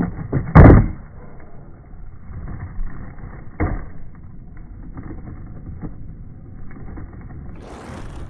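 Skateboard landing a flip trick on asphalt: a loud slap of the deck and wheels hitting the ground about half a second in, then rolling rumble with a second sharp knock of the board a few seconds later, all slowed down and muffled by slow-motion playback. A short hiss comes near the end.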